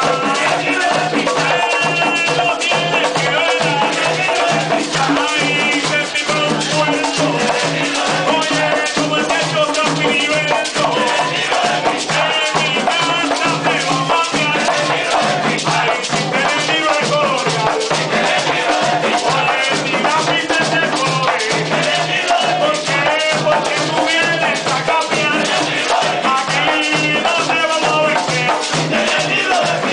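Live plena music: a group of panderos (hand-held frame drums) and jingling tambourines beating a fast, steady rhythm while a man sings into a microphone.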